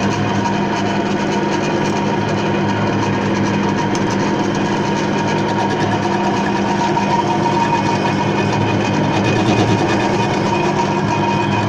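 Home-built lathe running steadily: a constant motor hum with a higher steady whine over it.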